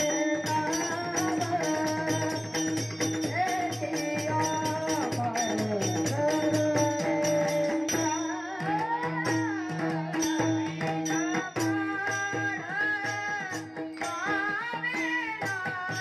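A boy's voice singing a Warkari bhajan melody, with small brass taal hand cymbals clashing in a steady rhythm, a harmonium holding a drone note and a pakhawaj drum beating underneath.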